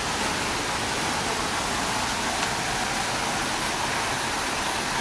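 Steady rushing and splashing of water from small cascades pouring over stone ledges into a garden pool.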